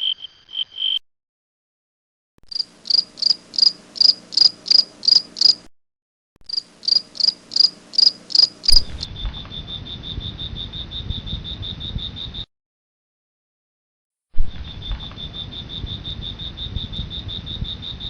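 Crickets chirping in separate stretches broken by dead silence: first evenly spaced high chirps, about three a second, then from about nine seconds in a fast, steady trill that stops for about two seconds and resumes.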